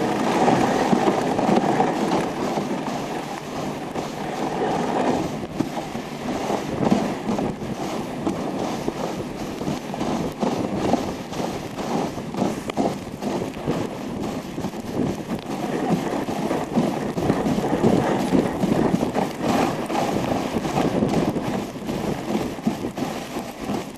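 Dog sled gliding along a packed snow trail: its runners give a steady, rough scraping hiss, with many small knocks and rattles from the sled.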